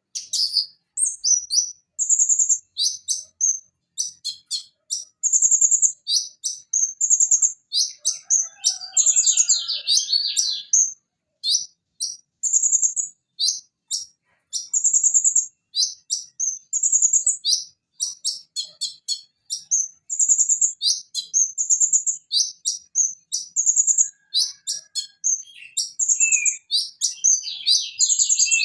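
Purple-throated sunbird (Leptocoma sperata) singing: rapid, very high-pitched chirps and trills in quick repeated phrases with short pauses between them.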